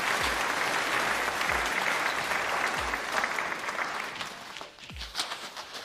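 Plastic and bubble wrap crinkling steadily as a wrapped bike frame is handled, thinning to scattered crackles near the end. Background music with a low beat about once a second runs underneath.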